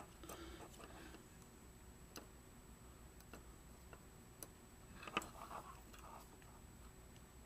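Near silence with a few faint, sharp clicks from fingers handling a resistor's wire lead and the flash unit's wires, a small cluster of them about five seconds in.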